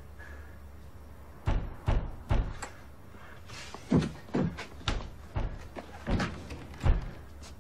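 A run of about nine heavy thuds and knocks, irregularly spaced, with the loudest one near the end.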